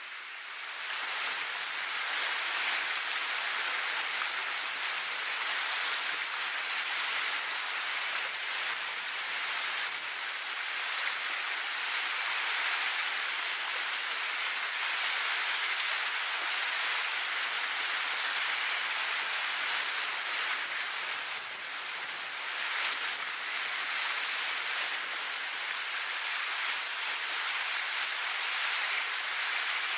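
Steady hiss of water noise, with no rhythm or separate strokes. It comes up within the first second and then holds even.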